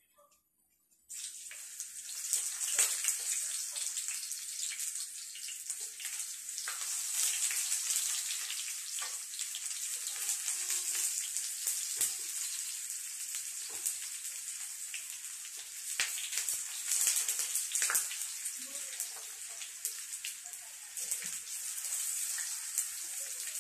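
Eggplant slices frying in hot oil in a frying pan: a steady sizzle peppered with crackles, starting abruptly about a second in.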